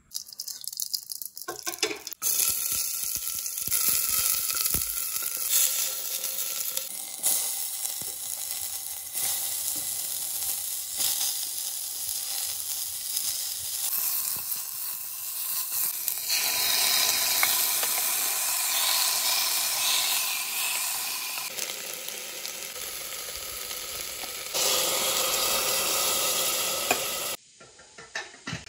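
Hot oil sizzling in an open pressure cooker as ingredients and then cubed bottle gourd are fried and stirred with a wooden spatula. The sizzle jumps in loudness abruptly several times and stops shortly before the end.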